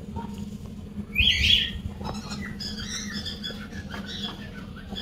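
A bird squawks loudly once about a second in, for about half a second, with fainter chirps before and after.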